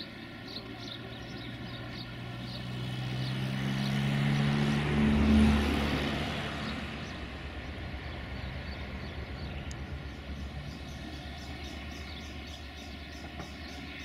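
A motor vehicle passes close by: its engine drone swells, peaks about five seconds in, then fades into a low steady hum.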